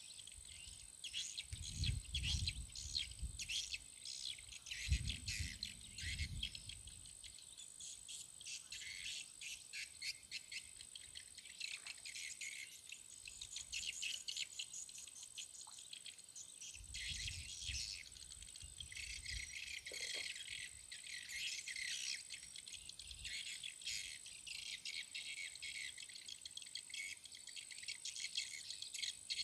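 Dense chorus of crickets and other insects chirping rapidly, with a steady high whine and bird chirps mixed in. A few brief low rumbles break in, twice in the first seven seconds and once past halfway.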